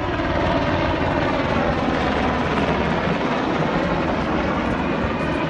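Aircraft engine noise, loud and steady, building over the first half second and then holding.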